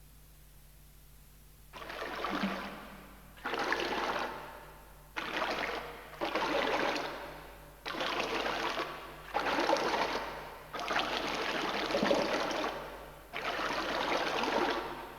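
Liquid trickling and splashing into water in a series of about eight spurts, each starting abruptly and fading away over a second or so, beginning after nearly two seconds of silence.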